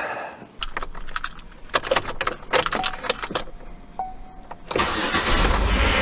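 Clicks and knocks, a short steady tone, then about five seconds in the 2008 Chevy Impala's 3.5-litre V6 cranks and starts, running loudly. It starts because a temporary ground wire now bypasses the corroded ground crimp that had left it with no spark.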